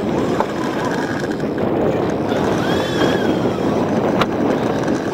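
Steady rumbling noise of a small open fishing boat at sea, with a brief high wavering call about halfway through.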